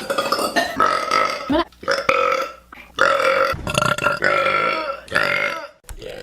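A woman burping, a run of several long, drawn-out burps one after another with short breaks between them.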